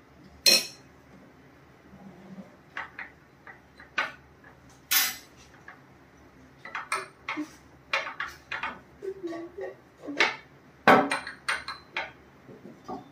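Metal spoons clinking and scraping against small glasses and a plate, with knocks from a wooden rolling pin pressing crushed Oreo down inside a shot glass. Irregular taps and clinks, the loudest about half a second, five and eleven seconds in.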